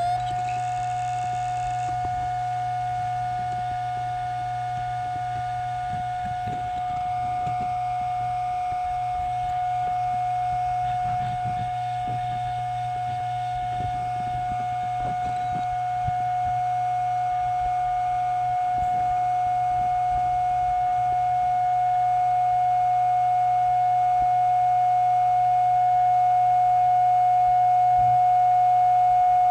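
Computer hard drive spinning at full speed: a steady whine at a constant pitch over a low hum. Faint clicks come now and then in the middle stretch, and it grows slightly louder in the last third.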